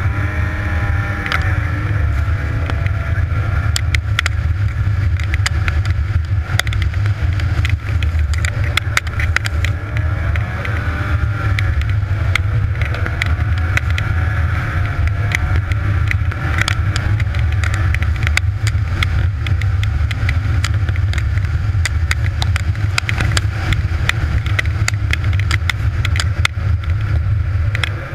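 Snowmobile engine running at speed, its pitch rising and falling with the throttle over a deep steady rumble, with frequent sharp ticks and knocks mixed in.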